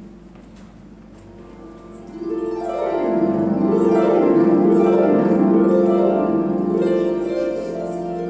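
Harp playing alone: a chord rings quietly at first, then from about two seconds in a swell of rapid sweeping runs builds up loud and eases back to a ringing chord near the end.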